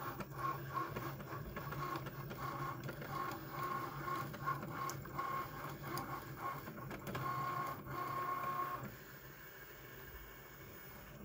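Cricut Maker cutting machine drawing with a pen: its motors whir in short starts and stops, with a steady whine and small clicks, as the pen carriage and mat shuttle through the last strokes of the drawing. The whirring stops about nine seconds in, leaving a faint hum.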